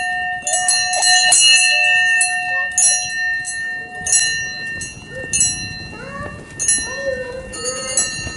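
Small bells jingling in quick clusters over a lingering ring, thinning out about halfway through. A few short wavering calls come near the end.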